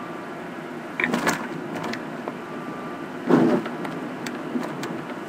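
Car cabin noise while driving through storm-surge floodwater: a steady engine-and-road hum, broken by two short louder bursts about a second in and around three and a half seconds in.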